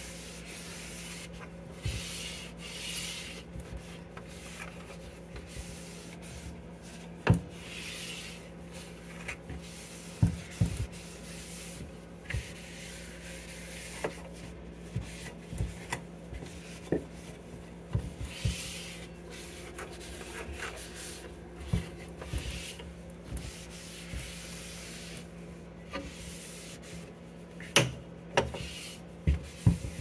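A cloth rubbing and wiping inside a plastic refrigerator door bin, in repeated strokes, with sharp clicks and knocks of the plastic now and then over a steady low hum.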